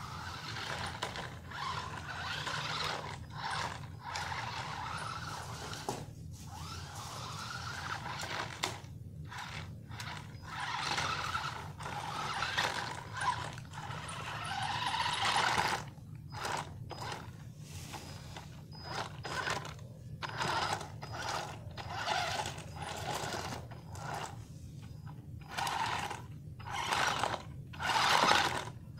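Electric drive motors of a Revolt RC stunt car whining in repeated short bursts as it is driven, stopping and starting, its wheels rolling over stone paving. Loudest near the end as the car comes right up close.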